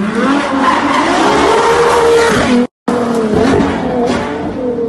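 Car engine revving hard, its pitch climbing for about two seconds over a rushing noise. It breaks off for a moment and comes back at high revs, then slowly drops.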